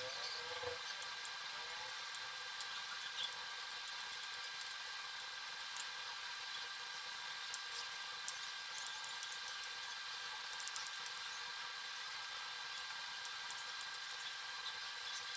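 Knife slicing button mushrooms on a plastic chopping board: light, irregular clicks of the blade meeting the board, over a steady background hum.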